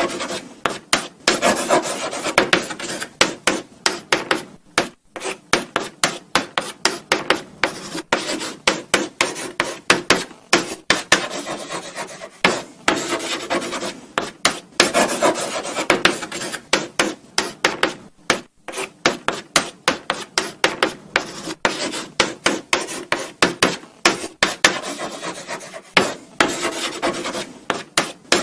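Chalk writing on a blackboard: rapid scratchy strokes and taps of the chalk against the board, with short pauses between words.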